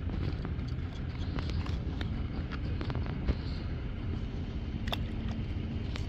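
A few small stones plopping into lake water as short, sharp clicks, over a steady low rumble.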